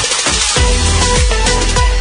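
Background music with a steady beat and a deep bass line that comes in about half a second in.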